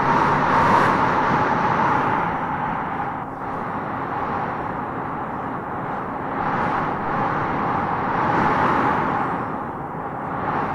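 Wind howling and gusting through trees, swelling and easing every few seconds.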